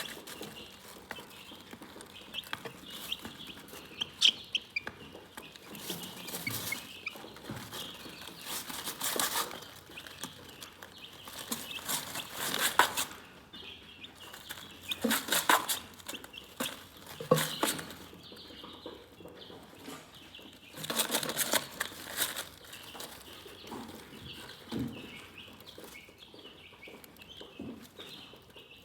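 Chickens clucking and chirping, a running stream of soft high calls with louder bursts of short scratchy strokes every few seconds.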